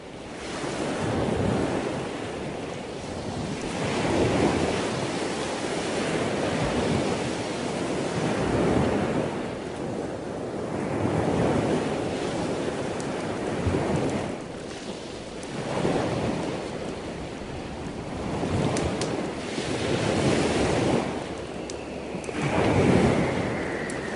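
Ocean surf: washes of wave noise swelling and ebbing every few seconds, with a faint tone gliding down in pitch near the end.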